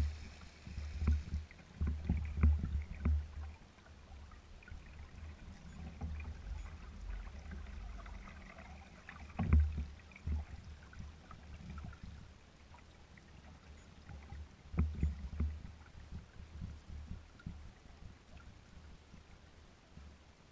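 Small waves slapping and lapping against the hull of a kayak sailing slowly in light wind. There are clusters of splashy slaps near the start, about nine and a half seconds in and about fifteen seconds in, with quieter lapping and a low rumble between them.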